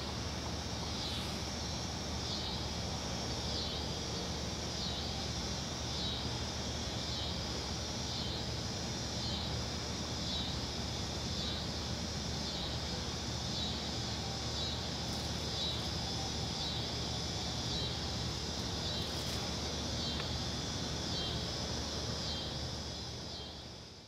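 Evening chorus of night-singing insects: a steady, high, shrill trill that swells and dips in an even rhythm a little slower than once a second, over a low background hum.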